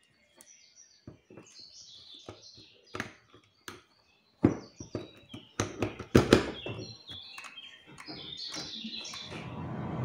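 Clicks and knocks of plugs, cables and an energy meter being handled on a desk as a DIY DC charging rig is switched on, with high chirps in the background. A steady low hum builds from about eight seconds in.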